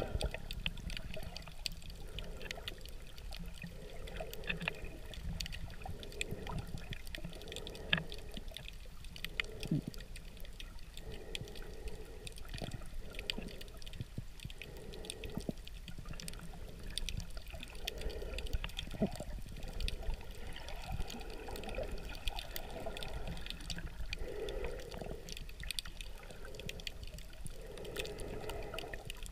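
Muffled underwater sound of a camera held under the sea: a low wash of water with soft swishing swells about once a second and scattered faint clicks.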